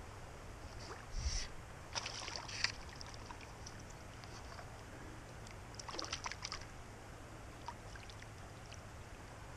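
A hooked rock bass splashing at the surface of a shallow creek while it is played in on a fly line, in three short bursts of splashing about a second in, around two seconds in and about six seconds in.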